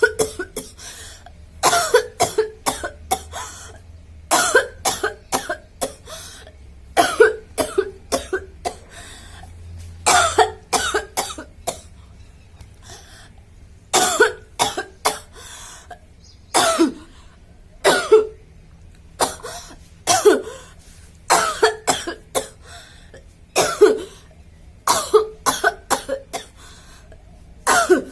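A woman coughing over and over in short bouts of two or three coughs, a new bout every second or two. The coughing is deliberate and forced, kept going nonstop rather than brought on by illness.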